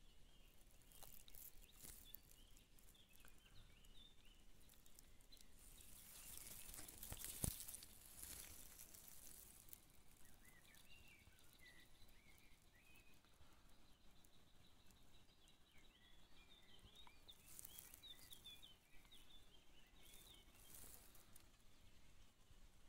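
Near silence: faint outdoor ambience with scattered faint bird chirps through the second half, and a single sharp click about seven and a half seconds in.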